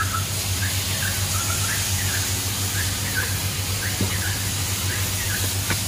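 Metal spatulas scraping and chopping on a flat iron griddle, squeaking in short chirps two or three times a second, with a couple of sharper knocks of the blade on the plate. A steady low hum runs underneath.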